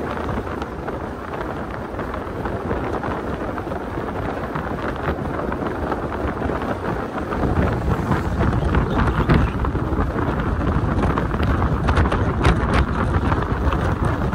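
Wind rushing and buffeting over the microphone of a camera held by a moving Mitsubishi Triton pickup, with road noise beneath. It grows louder and heavier about halfway through.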